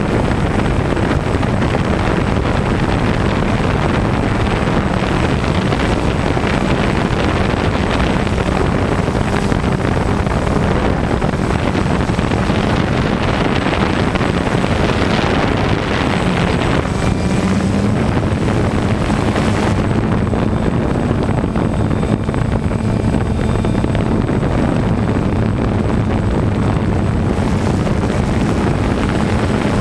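DJI Phantom 1 quadcopter's electric motors and propellers buzzing steadily, heard up close from the GoPro mounted on the drone, with wind rushing over the camera. The motor hum rises in pitch briefly a little past halfway as the drone manoeuvres.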